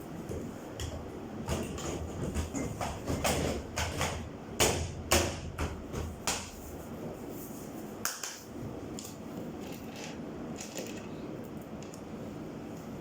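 A run of knocks and clicks from tools and metal parts being handled and struck during repair work on a clothes dryer, the two loudest knocks about halfway through, over a steady low hum.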